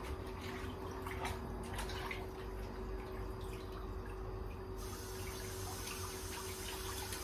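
Water dripping and trickling at a kitchen sink while raw pork neck bones are rinsed and handled, with small scattered knocks; a steady hiss of running tap water starts suddenly about five seconds in.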